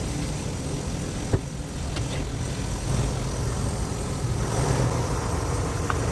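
A vehicle engine idling at low speed, a rig being manoeuvred into a site, with one sharp click about a second in. The engine gets a little louder about four and a half seconds in.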